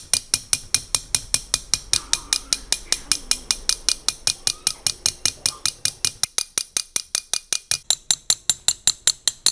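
Rapid, even tapping of a steel nail on the head of another nail set against a glass bottle: sharp metallic clinks, about six a second, that slowly crack the glass around the nail to punch a hole through it.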